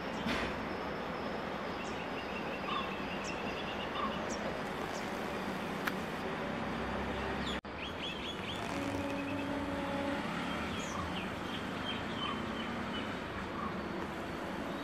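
Small birds chirping and trilling over a steady outdoor background noise, with a momentary break about halfway.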